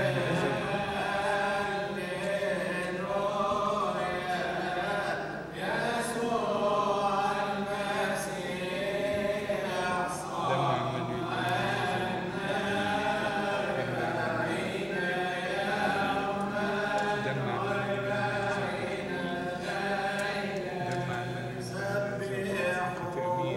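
Male voices chanting a Coptic Orthodox liturgical hymn during the giving of Communion, the melody gliding and turning continuously over a steady low drone.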